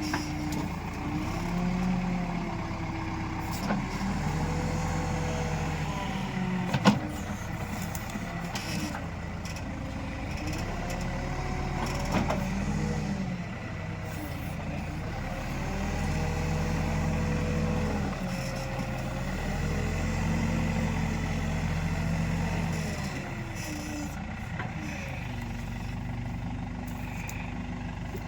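Backhoe loader's diesel engine working, its pitch rising and falling every few seconds as it revs up under load and drops back. One sharp clank comes about seven seconds in.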